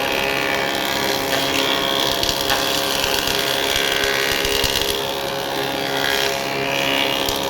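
A machine running steadily with a constant multi-tone hum, typical of a woodworking power tool.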